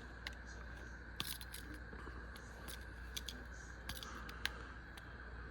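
Small metal clicks of a Swiss Tech multi-tool's folding implements being pulled out and snapped shut: about seven short, faint clicks at uneven intervals.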